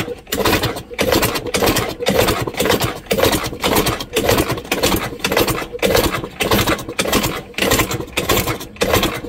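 50cc two-stroke moped engine with its exhaust pipe removed, pulsing out of the open exhaust port in regular bursts about twice a second and spitting two-stroke oil: the engine is filling up with two-stroke oil.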